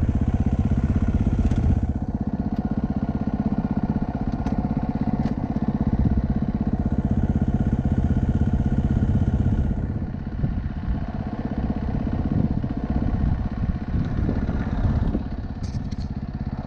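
A vehicle engine running with a fast, even pulse, turning quieter and more uneven about ten seconds in.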